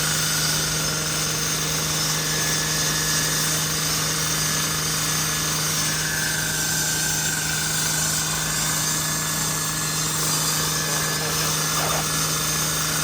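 Steady drone of running machinery: a constant low hum with several fixed tones above it, unchanging throughout.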